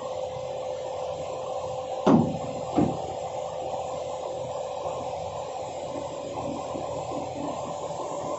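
Excavator running with a steady engine and hydraulic hum, broken by two loud metallic clanks about two and three seconds in.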